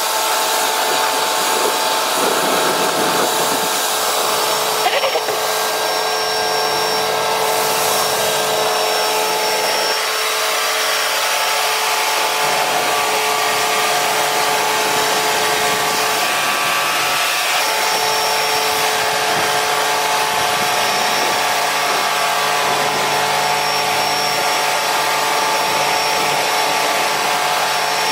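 Pressure washer running steadily: a constant motor hum under the hiss of the water jet as the lance rinses foam off car bodywork.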